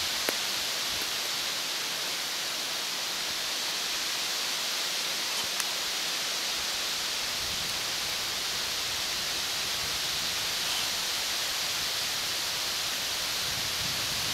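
Steady even hiss of quiet outdoor background noise, with two faint clicks, one just after the start and one about five and a half seconds in.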